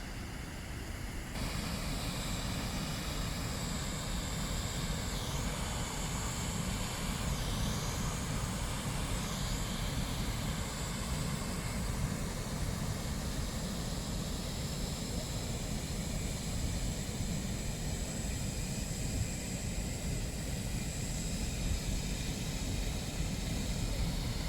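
Jagala waterfall's water rushing over the partly frozen falls, a steady low roar that steps up slightly in level about a second in.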